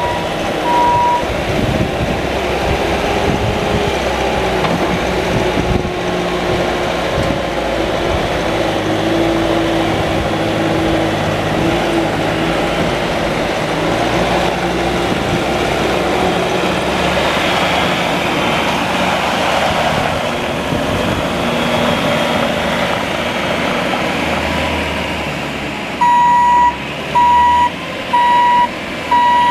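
Bobcat T650 tracked skid steer's diesel engine running steadily, its pitch shifting as the machine works. Its backup alarm beeps about once a second briefly at the start and again near the end, when the machine reverses.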